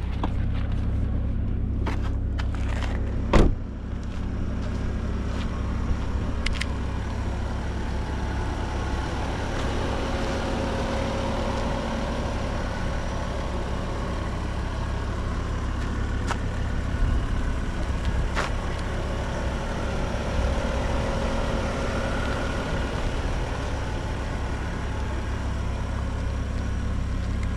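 Chevrolet Corvette C5's 5.7-litre V8 and road noise during a drive, a steady low rumble, with one sharp knock about three seconds in.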